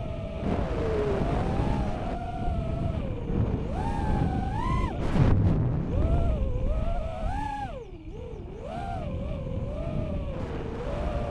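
Racing quadcopter's Racerstar BR2306S 2700 kV brushless motors spinning DAL 5045 three-blade props, heard through the onboard camera's microphone: a buzzing whine that rises and falls with the throttle over a rush of prop wash and wind. The pitch climbs sharply and is loudest about five seconds in, then drops low near eight seconds before rising again.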